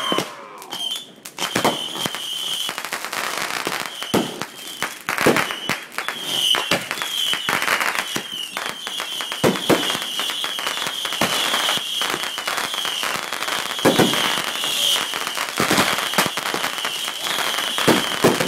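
Fireworks going off in quick succession: repeated sharp bangs of aerial bursts over a continuous crackle, with a high, wavering whistle starting about a second in.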